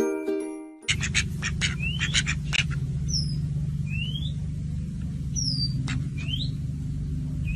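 Small birds chirping, with short rising whistled calls every second or two and a couple of higher falling ones, over a steady low hum. A few sharp clicks come in the first couple of seconds.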